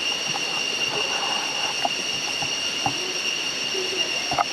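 Steady rushing noise of falling water from a jungle waterfall, with a constant high-pitched buzz over it and a few faint clicks.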